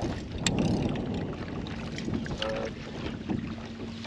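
Wind buffeting the microphone on an open bass boat, strongest in the first second and a half, under a faint steady hum. A sharp click comes about half a second in.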